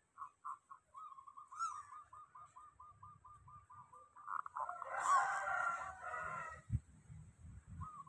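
Zebra dove (perkutut) cooing in a rapid rolling series of short, even notes, about seven a second: the 'mendoro' trill. About four seconds in, a louder, longer call of about two seconds overlaps it. Two low thumps follow near the end.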